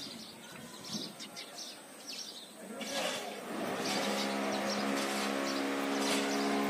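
Small birds chirp, then about three seconds in a steady motor hum comes in and holds.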